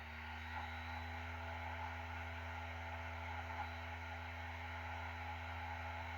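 External slimline Blu-ray drive spinning a disc, a faint steady whir and hum that settles to an even speed just as it starts. The installer disc is being read.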